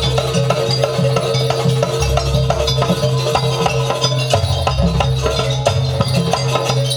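Jaranan accompaniment music: fast, dense drum strokes over a steady held tone, with deep low notes that shift every couple of seconds.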